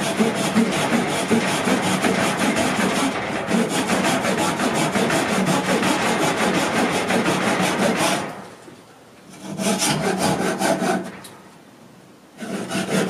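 Small handsaw cutting at an angle into a wooden stick, a steady run of rapid back-and-forth rasping strokes. The sawing stops briefly twice in the last third.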